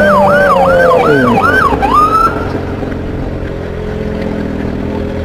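Police siren on yelp, rapidly rising and falling about two and a half times a second, with a lower tone sliding down partway through; it cuts off a little over two seconds in. A vehicle engine idling and road noise continue after it.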